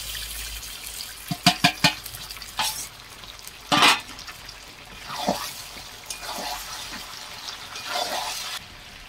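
Fried chicken pieces and potatoes sizzling in oil and masala in a wide metal pan, with a steel ladle stirring and knocking against the pan: a quick run of knocks about a second and a half in, then single knocks every second or so.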